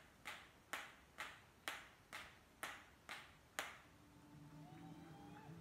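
Eight sharp cracks in an even rhythm, about two a second, each ringing briefly in the hall. Faint guitar music comes in near the end.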